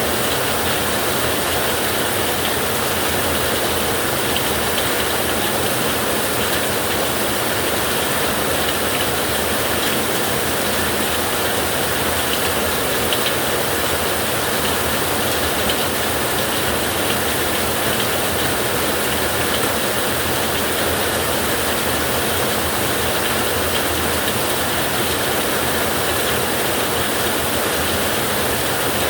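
Recorded ocean surf as a steady, even rush of noise, with no separate breaking waves or thunderclaps standing out.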